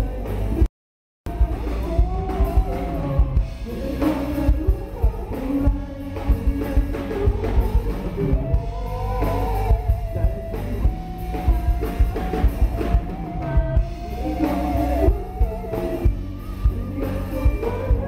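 Live rock band playing through a PA: a male singer over electric guitars and a drum kit with a steady beat. The sound cuts out for about half a second shortly after the start.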